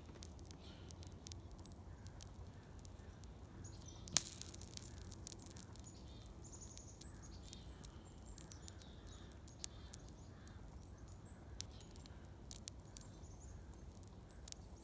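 A small fire of a burning cardboard roach motel with roaches inside, crackling with scattered sharp pops. One pop about four seconds in is clearly louder.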